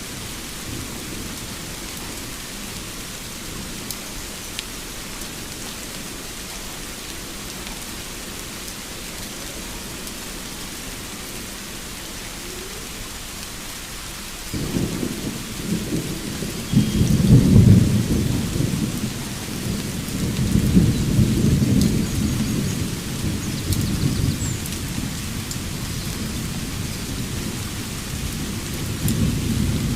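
Steady rain falling, with thunder breaking in about halfway through: a deep rolling rumble that swells loudest a couple of seconds after it starts, then rolls on in waves and swells again near the end.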